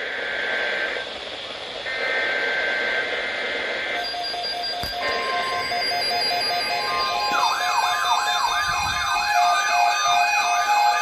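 Electronic alarm tones, joined about seven seconds in by a fast warbling electronic siren that sweeps up and down about three times a second.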